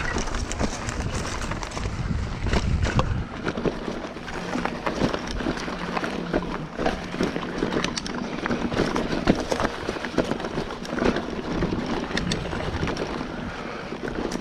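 Mountain bike riding a dirt trail: wind rushing over the camera's microphone and tyres running on dirt, with frequent clicks and rattles from the bike over rough ground. There is a heavier low rumble in the first few seconds.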